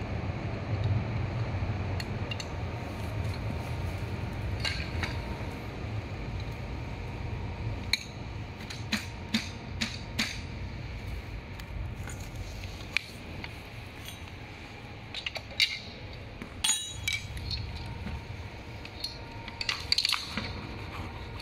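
Scattered metallic clicks and clinks of hand tools and scooter parts being handled while an electric scooter's folding mechanism is put together, a T-handle hex key among them, over a steady low hum.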